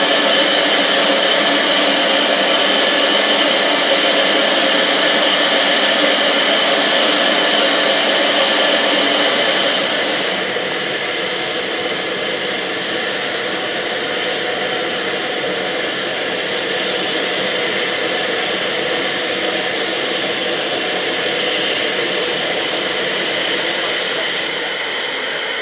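Steam hissing steadily from an LNER V2 class steam locomotive, loud and even, dropping a little in level about ten seconds in.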